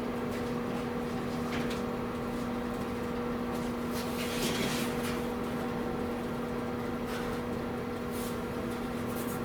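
Steady electrical hum of workshop equipment, with a few light clicks and a brief scraping rustle about four and a half seconds in as the panel is handled.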